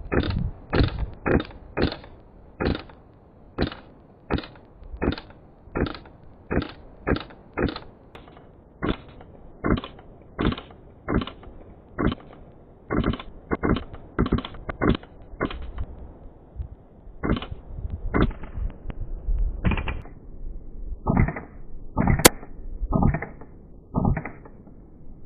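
Airsoft rifle firing single shots in a long string, about two a second at first, then with longer, uneven gaps between shots. One very sharp crack comes near the end.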